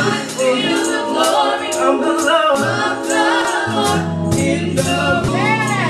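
Live gospel song: a choir singing over a bass line, with crisp percussion strokes keeping a steady beat.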